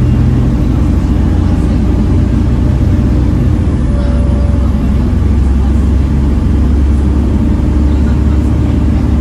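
Volvo B7TL bus's six-cylinder diesel engine running steadily as the bus drives along.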